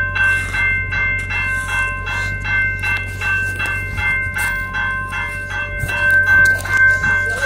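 Railroad grade-crossing warning bell ringing steadily, about two and a half strikes a second, kept active by a freight train stopped across the crossing.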